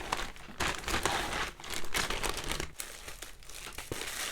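Packaging crinkling and rustling as it is handled and opened, in irregular bursts that thin out in the second half.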